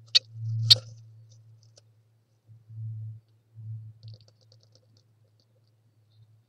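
A blue tit moving about on its nest inside a wooden nest box, heard close up. Two sharp scratchy clicks come in the first second, then low bumps in short bursts as it shifts in the nest material, with faint high ticks about four seconds in.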